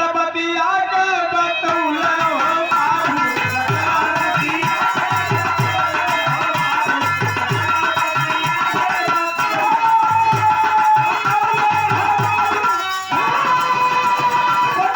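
Instrumental Birha folk accompaniment: a harmonium plays a sustained melody over a dholak, whose bass strokes come in repeated groups with the pitch sliding down.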